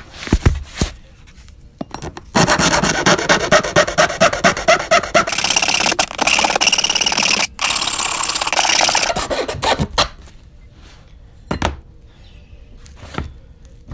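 Hand file rasping along the edge of an acrylic (perspex) sheet in rapid back-and-forth strokes, evening up the cut edge. The filing starts about two seconds in, breaks off briefly, and stops about ten seconds in; a couple of knocks come before it.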